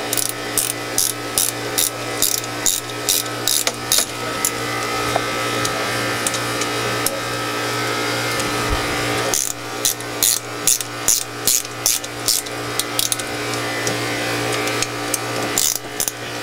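Ratchet wrench clicking in quick, even runs of strokes as the bolts on a Caterpillar C18's seawater pump cover are tightened down. It stops twice, for several seconds after about four seconds and again briefly near the end, while a steady low hum runs underneath.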